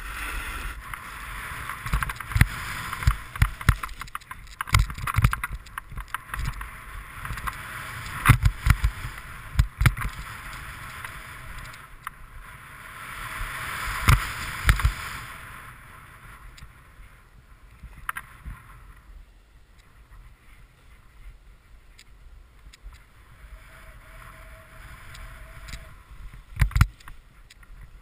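Snowboard sliding and scraping over snow, with a rushing noise and frequent sharp thumps as the board rides over bumpy, chopped snow. About halfway through the rush dies down to a quieter slide with only a few thumps.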